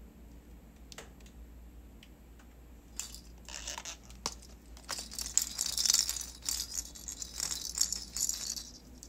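A few light clicks, then from about three seconds in, bursts of crisp rustling and scratching on a cloth sofa cover, busiest in the second half, as a ragdoll cat paws and noses at the cover.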